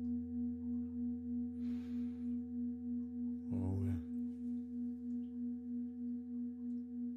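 A deep pelvic singing bowl (Beckenschale) rings on as a steady low hum with fainter overtones above it. Its sound swells and fades in a slow, even wobble, about three times a second.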